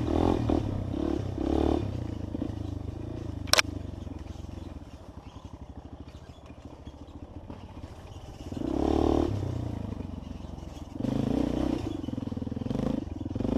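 Trail motorcycle engine running unevenly, swelling louder as it is revved a few times between quieter, lower running. There is one sharp click a few seconds in.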